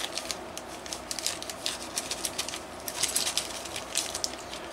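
Hands working open a small velvet pouch: cloth rustling and the metal engine spacers and mounting screws inside clinking in quick, irregular clicks.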